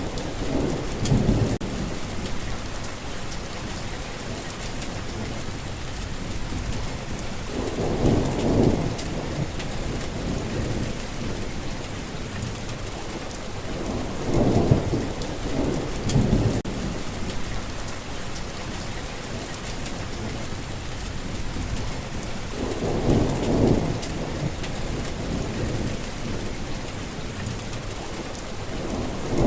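Steady rain falling, with low rumbles of thunder about every seven seconds, four of them.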